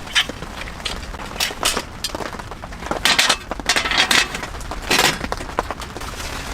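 Irregular crackling and clicking with small clinks, in dense clusters about three, four and five seconds in.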